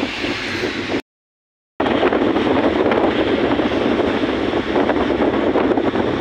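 Wind rushing over the microphone with road and engine noise from a moving vehicle, picked up at its side window. The sound cuts out completely for under a second about a second in, then resumes.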